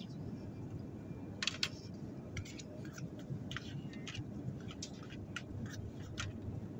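Metal spoon scraping and clicking against a foil meal tray in irregular short strokes, the loudest pair about one and a half seconds in, over the steady low drone of an airliner cabin.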